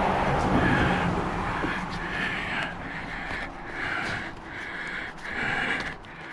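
Heavy panting breaths, repeated roughly once a second, from exertion.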